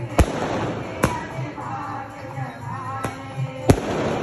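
Fireworks going off: four sharp bangs, the loudest near the end, over a din of music and voices.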